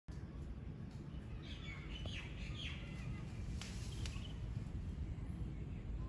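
Common myna calling: a run of short, falling chirps between about one and a half and three seconds in, then two sharp clicks just before four seconds, over a steady low background rumble.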